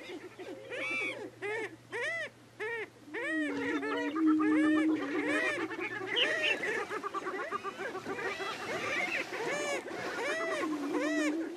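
Prairie chickens calling on a lek: quick, repeated cackling and whooping notes overlap throughout. A low, steady booming note is held for about two seconds a few seconds in, and comes again near the end.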